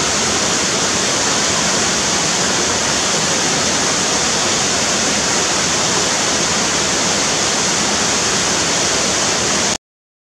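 Small cascading waterfall pouring over rock ledges into a pool: a loud, steady rush of falling water that cuts off abruptly near the end.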